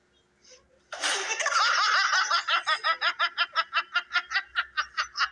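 A person bursts out laughing about a second in, then keeps laughing in quick, rhythmic pulses, about six a second.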